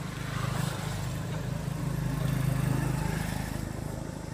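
A motor vehicle's engine going past: a steady low hum that swells, is loudest about two and a half seconds in, and fades after about three seconds.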